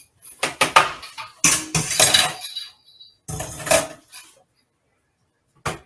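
Kitchen utensils and cookware clattering, with metal and dishes knocking together in two busy runs, followed by one short, sharp knock near the end.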